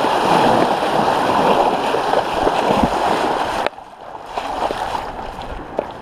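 Muddy floodwater rushing and splashing around a mountain bike wading through a flooded creek. It is loud and even until it drops off suddenly a little over halfway through, leaving quieter flowing water.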